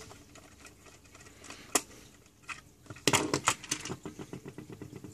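Plastic clicks and rattles of a multimeter case being handled and opened up. There is a single sharp click about a second and a half in, then a burst of clicks around three seconds, followed by a run of light ticks.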